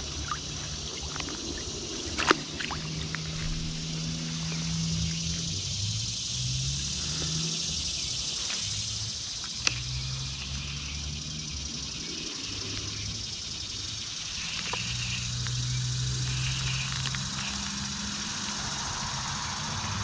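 Small mountain stream running over rocks, a steady rushing hiss, with an uneven low rumble underneath. Two sharp clicks stand out, about 2 seconds in and again near the middle.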